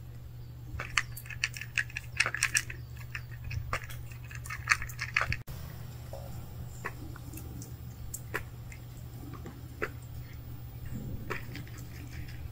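A cat crunching dry kibble from a plastic tray: a quick run of sharp crunches and clicks for about the first five seconds. After that only a few scattered clicks are left over a steady low hum.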